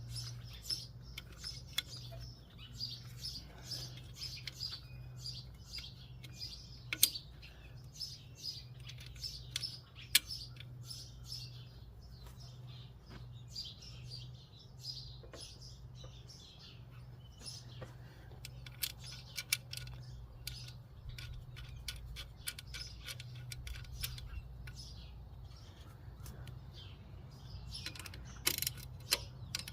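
Small birds chirping and calling over and over, with a few sharp clicks, the loudest about 7 and 10 seconds in and a cluster near the end, over a faint steady low hum.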